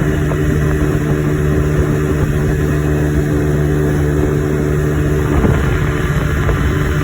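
1985 Evinrude 25 hp two-stroke outboard motor running at a steady speed with the boat under way, on its newly replaced fuel pump.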